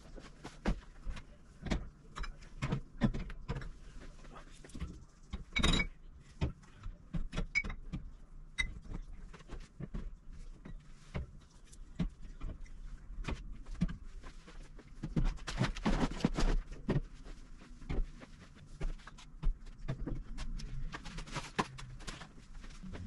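Bottles, jars and boxes being handled and set down on wire pantry shelving: irregular clinks and knocks, with a busier stretch of handling about two-thirds of the way in.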